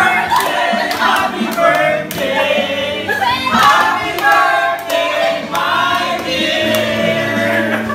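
A group of men and women singing a birthday song together in unison, with scattered hand clapping over the singing.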